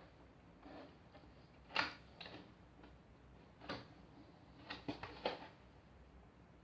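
Unboxing handling sounds: light clicks, taps and crinkles of a plastic figure and its blister packaging being handled. The sharpest comes about two seconds in, with several close together near the end.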